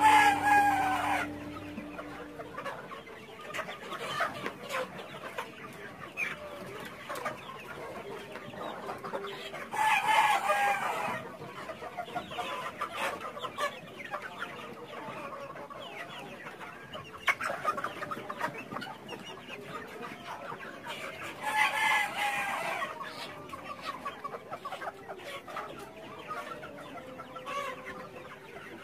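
A flock of desi chickens clucking steadily, with a rooster crowing three times, about ten seconds apart.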